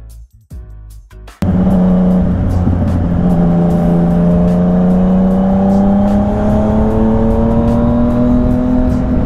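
Soft music, then about a second and a half in, the sound of a Yamaha MT-09's three-cylinder engine starts abruptly. The engine pulls steadily under acceleration, its pitch slowly rising, over wind rush.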